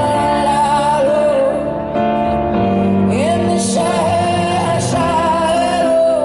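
Live band playing a pop ballad, with a woman's voice singing long held notes that slide up into pitch at their starts.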